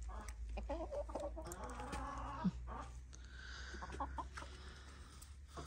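Domestic hens clucking quietly in short, soft calls.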